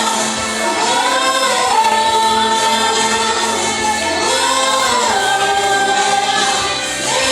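A gospel vocal group singing a Christian worship song together, long held notes rising and falling over a steady low accompaniment.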